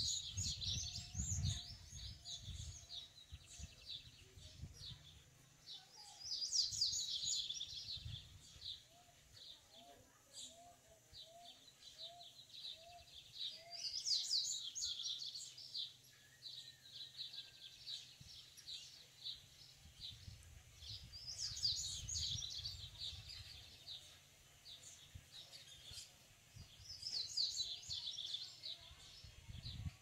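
A male papa-capim seedeater singing: a fast, high twittering song phrase of about two seconds, repeated five times, roughly every seven seconds. A low rumble of wind on the microphone comes at the start and again past the middle.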